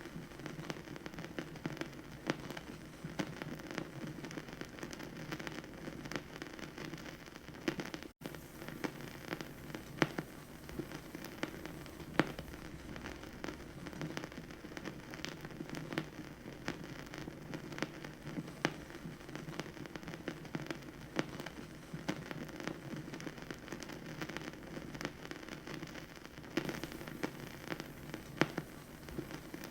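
Vinyl record surface noise from a record player: frequent irregular pops and clicks over a steady low crackling hiss. There is a momentary dropout about eight seconds in.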